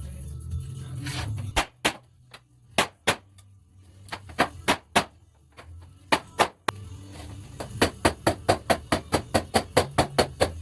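Hammer striking sheet metal while a deck panel is shaped. A few scattered blows come first, then a quick, even run of about four strikes a second near the end.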